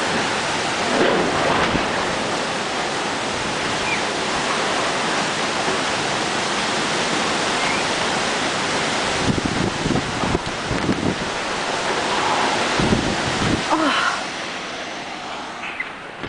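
Strong storm wind rushing steadily over the microphone, with gusts buffeting it in low thumps in the latter half. It eases off near the end.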